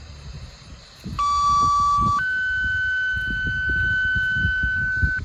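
Two-tone sequential paging alert over a scanner radio: a steady tone for about a second, then a higher steady tone held for about three seconds that cuts off sharply. These are the tones that open the county dispatch announcement of the monthly siren test.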